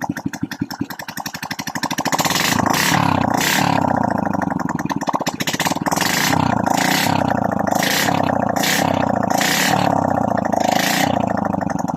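Honda RS125 Fi single-cylinder four-stroke engine running with its muffler off, freshly rebored and reassembled. From about two seconds in it is revved over and over in quick throttle blips.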